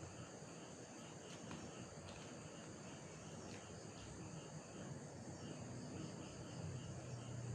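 Crickets chirping steadily in a continuous pulsing trill, with a few faint clicks.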